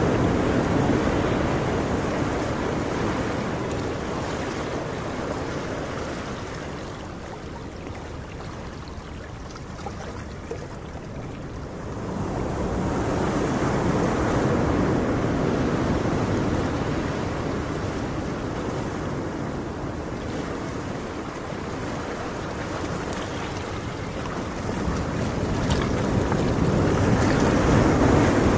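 Sea surf washing onto a sandy beach, mixed with wind rumbling on the microphone. The noise swells and ebbs, lowest about a third of the way through and rising again after.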